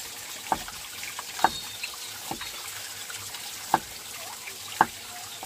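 Water splashing and dripping in separate small drops, about one a second and unevenly spaced, over a steady hiss.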